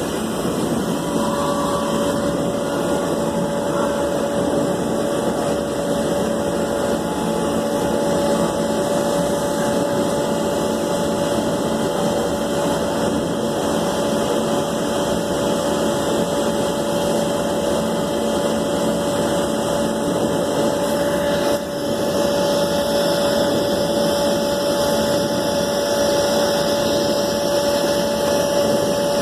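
A small electric motor running steadily with a constant whine, dipping briefly about 21 seconds in and then running on.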